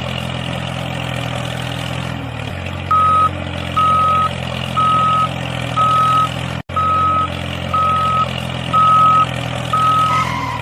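A vehicle engine runs steadily. From about three seconds in, a reversing beeper sounds about once a second, eight beeps in all. The sound cuts out for an instant about two-thirds of the way through.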